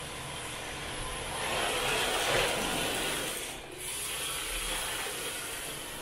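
Electric MST rear-wheel-drive RC drift car running on a concrete floor: motor and geared drivetrain whirring with the tyres scrubbing, swelling to its loudest about two seconds in and dipping briefly near four seconds.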